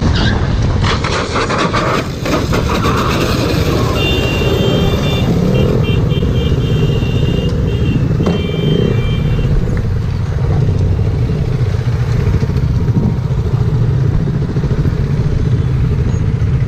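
Motorcycle riding at speed, heard from a helmet camera: a steady engine rumble under heavy wind noise on the microphone. A horn beeps in short repeated blasts from about four to nine seconds in.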